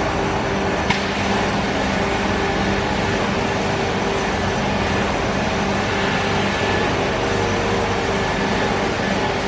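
Steady hum of running machinery, with a few steady tones, and one sharp click about a second in.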